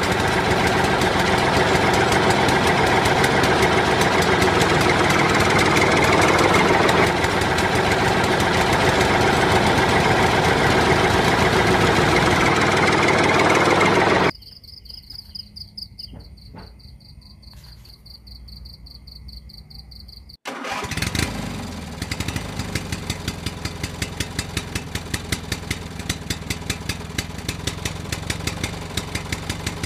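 Engine running for the toy tractor pull, cutting off suddenly about fourteen seconds in to a much quieter stretch with a faint high whine. About twenty seconds in an engine sound starts again, running with an even, rapid pulse.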